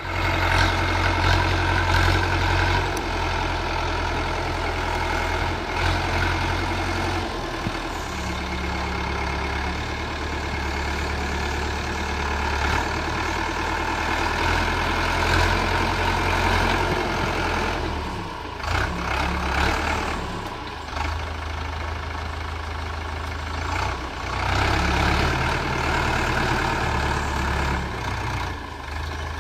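YTO Agri Master tractor's diesel engine running under load as its front dozer blade pushes earth and rocks. The engine note dips and shifts a few times as the load changes.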